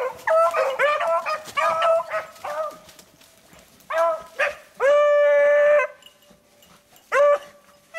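Beagles baying on the trail of a wounded rabbit that has gone under a building. A quick run of barks, then a single long drawn-out bawl about five seconds in, and another bark near the end.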